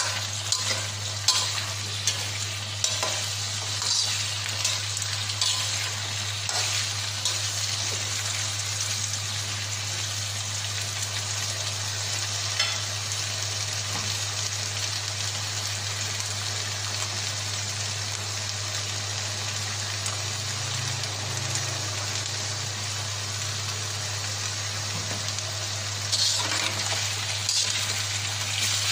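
Cubed potatoes and carrots sizzling steadily in hot oil in a wok, being lightly pre-fried. A metal spatula scrapes and stirs them in the first few seconds and again near the end.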